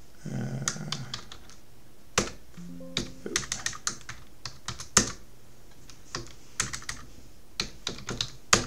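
Typing on a computer keyboard: irregular keystroke clicks in short runs, with pauses between commands.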